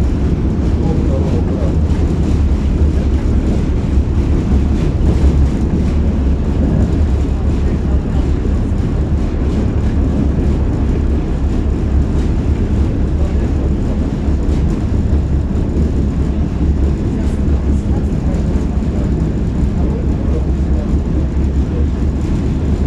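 Tatra T6B5 tram running between stops, heard from on board: a steady low rumble of the traction motors and wheels on the rails, with no clear breaks.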